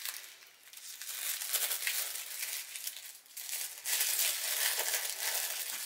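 Tissue paper crinkling and rustling as hands unwrap it. It comes in two long stretches with a short lull about halfway through.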